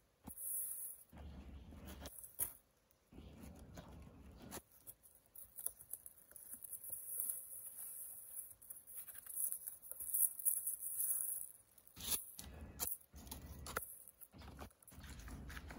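A cardboard parcel being opened by hand: its flaps and packing tape are pulled and scraped, with irregular rustles, scrapes and clicks and some low bumps of handling.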